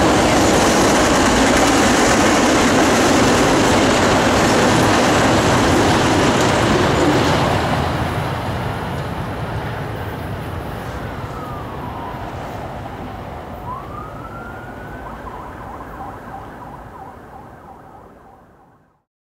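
Freight train autorack cars rolling past on steel wheels, a steady rumble that falls away about seven seconds in as the end of the train clears. Then a siren wails faintly, falling and rising in pitch, before everything fades out near the end.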